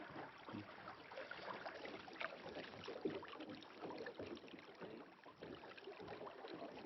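Faint water splashing and lapping around a small fishing boat, with scattered light ticks and splashes.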